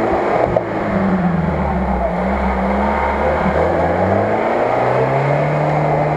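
UAZ-469 off-roader's engine working under load in mud, its revs rising and falling several times as the driver feeds and lifts the throttle. A short knock about half a second in.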